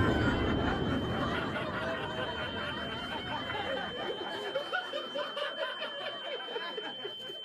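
Laughter from many people, chuckling and snickering, which gathers from about three seconds in. Under it a low rumble fades out over the first few seconds, and a steady high tone runs throughout.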